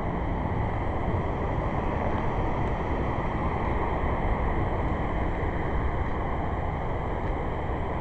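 Steady rushing noise that holds an even level throughout, with no distinct events.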